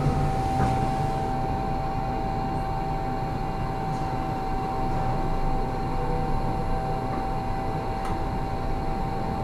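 Toshiba hydraulic passenger elevator running: a steady whine holding one pitch over a low rumble, starting suddenly right at the beginning.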